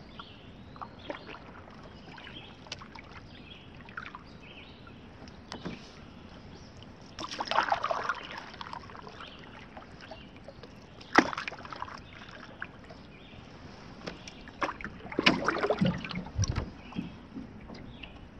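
Paddling a wooden canoe on calm water: a few paddle strokes splash and drip, with small clicks, and there is a single sharp knock about eleven seconds in.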